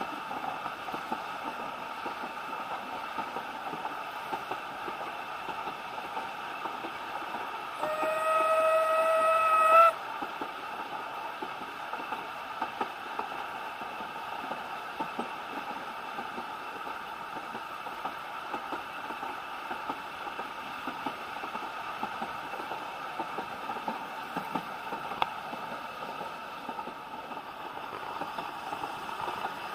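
A steam locomotive's whistle sounds once for about two seconds, eight seconds in: a single steady note that rises slightly at the end. Under it runs the steady rumble and rail clicks of the narrow-gauge train carriage.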